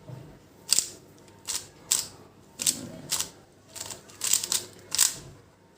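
Plastic Rubik's cube layers being turned by hand, giving about eight sharp clicks at uneven intervals as last-layer (OLL) algorithm moves are executed.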